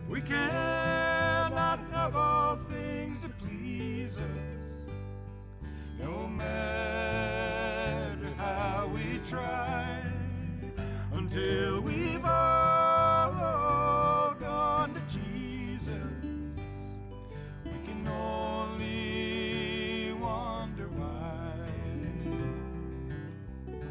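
Country music: acoustic guitar and bass under a wavering lead melody, in several phrases.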